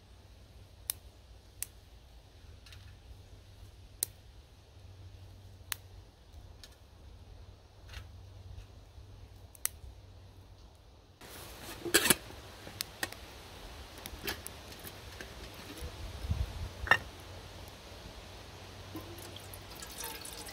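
Small twig fire in a Firebox Nano stove crackling, with scattered single sharp pops. About halfway through the sound changes abruptly to louder knocks and clinks of metal cookware being handled, and water starts pouring into a camp kettle near the end.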